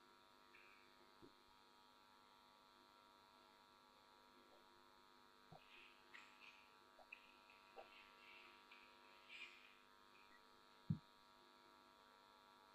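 Near silence: a faint steady electrical hum, with a few soft clicks and one sharper click near the end.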